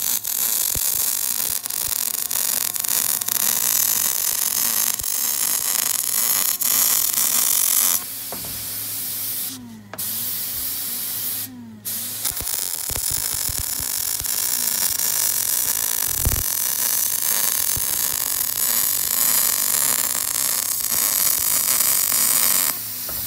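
Semi-automatic wire-feed welder arc crackling and hissing steadily while it runs a weld along the seam between two steel floor plates, with two brief breaks in the arc about ten and twelve seconds in.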